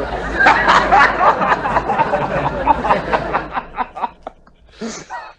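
Laughter, loud for about three seconds and then fading away.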